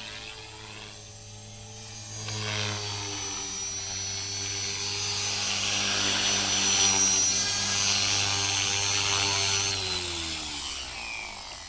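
Electric Align T-Rex 450L Dominator RC helicopter's rotors and brushless motor whining steadily, growing louder as it comes in close. Near the end, after it touches down, the motor and rotors wind down, the pitch falling away.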